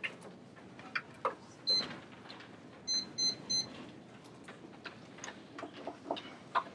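Electronic beeps: one short high beep, then about a second later three quick beeps at the same pitch. Around them come scattered light clicks and taps, like paper handling and keyboard use in a quiet room.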